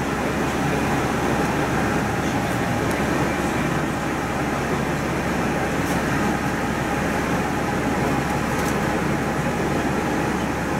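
A bus on the move, its engine and tyres making a steady, even running noise with no distinct events.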